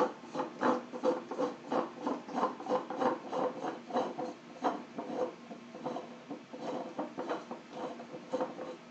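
Large 3D-printed plastic screw being turned by hand out of its printed nut, the threads rubbing and scraping in a quick, irregular string of short rasps.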